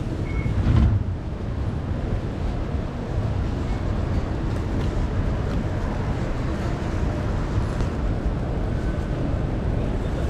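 Steady low rumble of an MRT station concourse's ambience. A short beep comes just after the start, then a thump about a second in.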